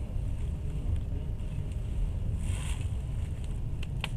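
Steady low rumble of a moving passenger train heard from inside the carriage, with a brief hiss about two and a half seconds in and a couple of sharp clicks near the end.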